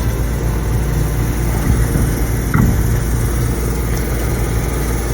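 An engine idling steadily, with one short knock about two and a half seconds in.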